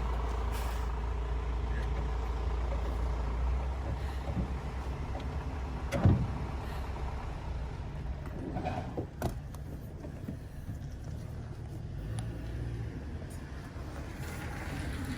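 Low steady rumble with scattered clicks and knocks from hands working on a car door's trim panel and speaker, with a sharp thump about six seconds in and a smaller knock a few seconds later.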